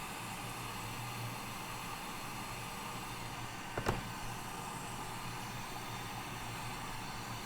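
Steady airy hiss with a low hum from running microsoldering bench equipment, with one sharp click about four seconds in.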